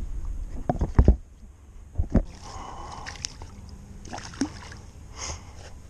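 Heavy thumps from handling a large fish and stepping down the bank, the loudest about one and two seconds in, then water sloshing and splashing as the fish is lowered into the pond and released.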